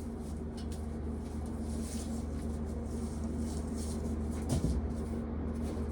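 Electric box fan running steadily with a low hum and a soft rush of air. Faint rustling and a soft knock about four and a half seconds in.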